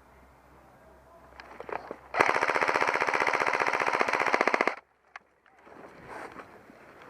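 Airsoft electric gun firing one close, rapid full-auto burst of about two and a half seconds, starting about two seconds in.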